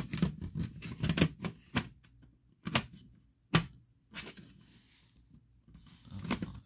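Irregular plastic clicks and knocks from a vintage smoke alarm being handled, with several sharp clicks in the first half and another near the end.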